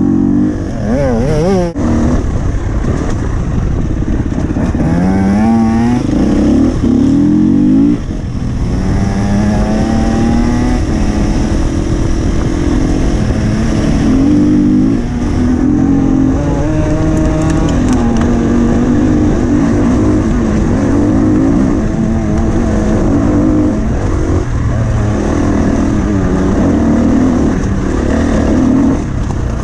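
Husqvarna FE 250 single-cylinder four-stroke enduro engine being ridden hard, revving up and falling back again and again as the rider works the throttle and gears. There is a sharp knock about two seconds in.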